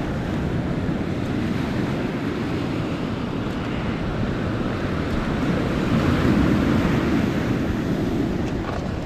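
Lake Superior waves washing onto a shore of flat stone cobbles, a steady surf that swells louder about six seconds in, with wind on the microphone.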